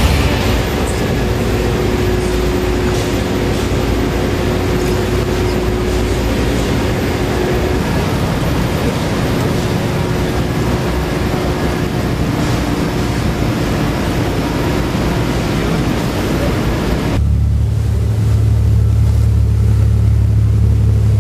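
A sportfishing boat underway: its engine running beneath a loud rush of wind and water. About seventeen seconds in, the sound changes abruptly to a deep, steady engine drone with the rushing hiss gone.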